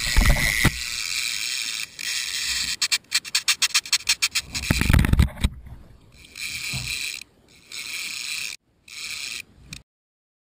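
Wind hissing and rumbling on the microphone, with low handling knocks. About three seconds in comes a fast run of clicks, a fishing reel's drag paying out line as a shark runs with the bait. The sound breaks up and cuts off to silence near the end.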